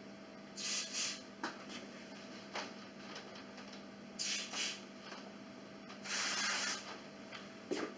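Aerosol can of lubricant spraying onto garage door hinges in short hissing squirts: two quick squirts about a second in, two more about four seconds in, then one longer squirt of nearly a second.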